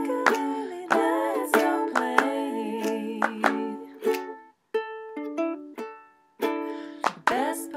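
Pineapple ukulele strummed in chords under a wordless vocal melody. About four seconds in, the strumming thins out to a few single plucked notes. Full strumming comes back near the end.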